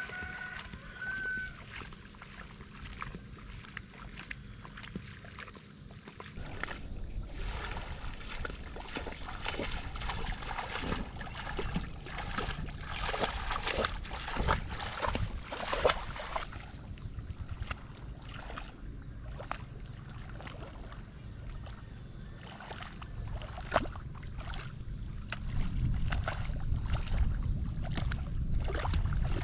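Water splashing and sloshing as a person wades through a flooded, muddy rice paddy, dragging something on a rope through the mud. The splashing is heaviest in the middle stretch and thins out later.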